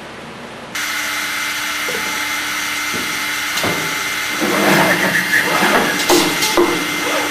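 CNC boring machine running, its spindle motors giving a steady whine over air hiss that comes in abruptly about a second in. From about four and a half seconds the bits cut into a wooden part with uneven rasping and a few sharp clunks.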